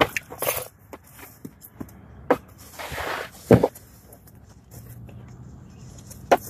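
Handling noise from the carpeted trunk floor panel and cloth being moved: rustling and scraping with several knocks, the loudest about three and a half seconds in.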